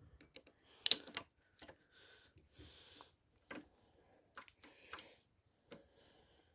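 Irregular metallic clicks, clinks and short scrapes from a screwdriver wedged into a cheap padlock being pried and worked against the shackle. The sharpest click comes about a second in.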